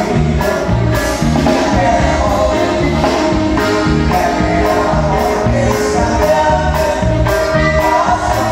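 Live norteño music played loud through a PA: a man singing over accordion and bajo sexto, with bass notes and a steady drum beat.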